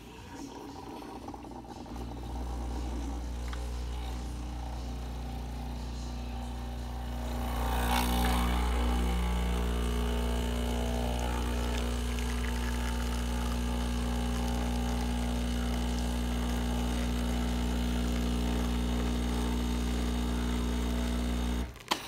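Breville 920XL espresso machine's pump humming as it pulls a shot. The hum starts softer about two seconds in, steps up louder about eight seconds in as full brewing pressure builds, holds steady, then cuts off suddenly near the end.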